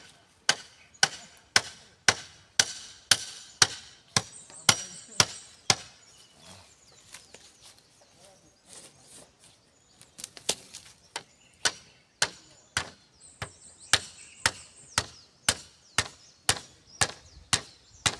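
A hand tool striking bamboo in steady, sharp blows, about two a second, stopping for a few seconds near the middle and then starting again at the same pace.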